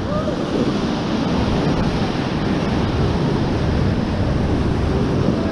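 Whitewater rapids rushing, a steady loud wash of water close around the raft.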